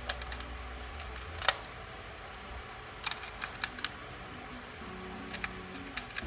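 Scattered sharp clicks and taps of small laptop parts and a screwdriver being handled during reassembly, the loudest about a second and a half in, over faint background music.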